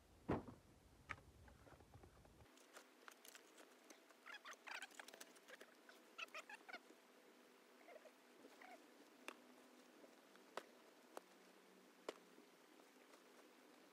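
Faint, sparse scraping and clicking of soil, stones and charcoal as a ground oven is dug open with a spade and by hand, with one sharp knock just after the start.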